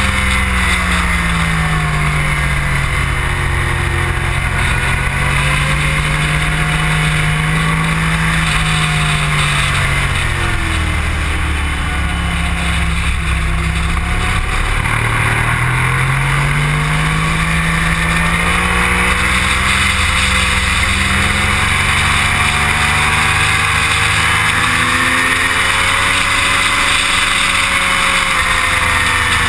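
Motorcycle engine running hard at track speed, its pitch falling as it slows for corners and rising again as it accelerates out, with the deepest dip midway. Heavy wind rush over the camera runs underneath.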